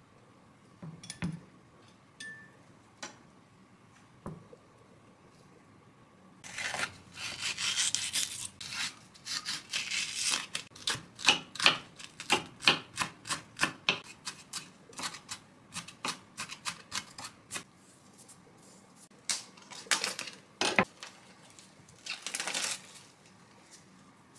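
Chef's knife chopping green onions on a wooden cutting board: a long run of quick, sharp chops, about two or three a second. Near the end there is a short crinkle of a plastic bag.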